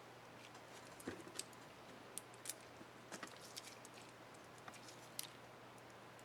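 Irregular small plastic clicks and ticks from an Asus K55A laptop keycap and its retainer being handled and pressed into place on the keyboard.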